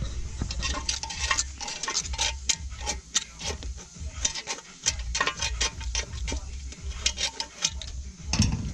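Irregular metallic clicks and clinks of hand tools and loose metal parts being handled, over a steady low hum.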